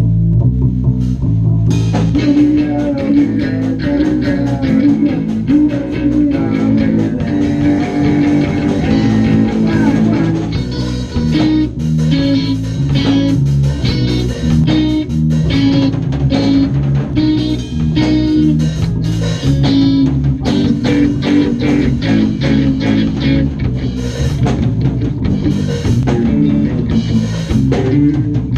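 A three-piece band playing live together: electric bass, electric guitar and a Pearl drum kit. Bass and guitar start alone, and the drums come in about two seconds in.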